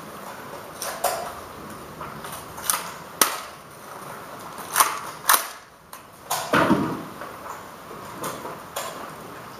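Irregular sharp clicks and knocks, about ten of them, unevenly spaced, with a heavier thump about two thirds of the way in.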